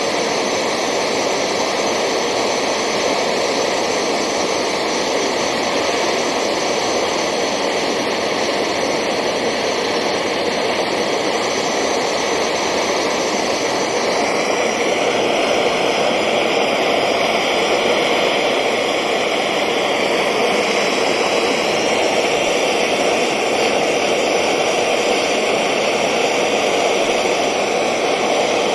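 Gas blowtorch flame burning with a steady roar, heating a small crucible to melt down silver.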